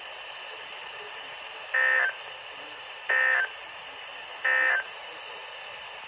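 Three short bursts of EAS/SAME end-of-message digital data tones, each about a third of a second long and evenly spaced about a second and a third apart, from a Midland weather radio's speaker over steady radio hiss. They signal the end of the NOAA Weather Radio flash flood warning broadcast.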